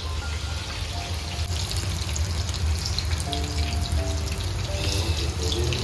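Chicken pakodas deep-frying in a pan of medium-hot oil: a steady sizzle full of fine crackling as the battered pieces cook toward golden brown.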